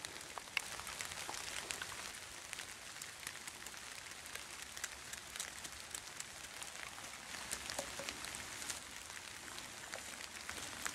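Light rain dripping on leaves and leaf litter: a soft hiss with many scattered small ticks.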